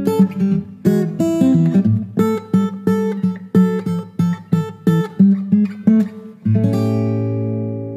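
Instrumental music: a guitar picking notes in a steady rhythm, ending on a chord struck about six and a half seconds in and left to ring out.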